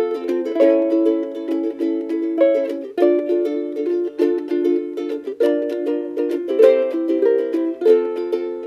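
Background music: a bright instrumental tune of quickly plucked string notes in a steady rhythm.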